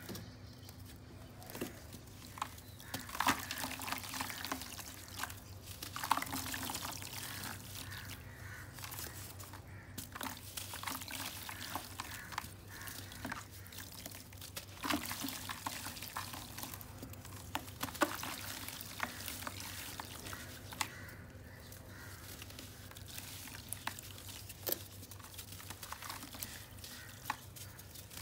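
A lump of dry earth crumbled by hand into a bucket of water: fine grains and bits sprinkling onto the water surface with a steady hiss and irregular small ticks and splashes.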